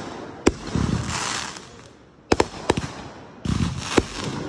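Aerial fireworks bursting: a sharp bang about half a second in, a quick run of three near the middle and another near the end, with crackling hiss swelling between the bangs.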